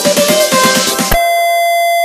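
Electronic music with a driving beat that cuts off suddenly about a second in, giving way to a single steady electronic beep tone, held unchanged.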